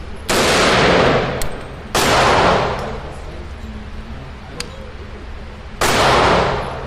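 Three rifle shots from a 300 Blackout AR: one just after the start, one about two seconds in and one near the end. Each rings out in a long echo. Two faint clicks fall between the shots.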